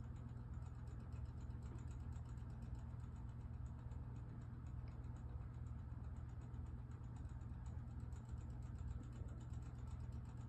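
Self-setting wall clock's movement stepping its hands forward fast, a rapid run of faint, even ticks. A steady low hum sits underneath and is louder than the ticking.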